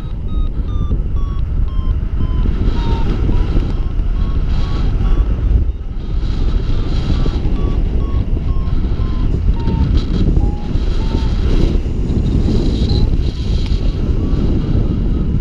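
Paragliding variometer beeping in short, regular beeps whose pitch slowly falls and then rises again, the beeping signalling that the glider is climbing. Loud wind rush on the microphone from the airflow in flight.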